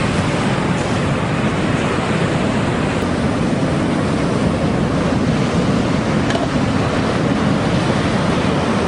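Strong wind buffeting the microphone over rough sea surf, a steady loud rush of noise.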